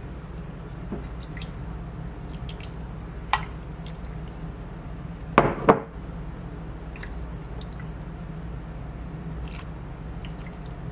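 A ladle scoops kimchi stew from a pot and pours it into a bowl, with soft dripping and splashing of liquid. A sharp clink comes about three seconds in and two louder knocks come close together about five and a half seconds in, over a steady low hum.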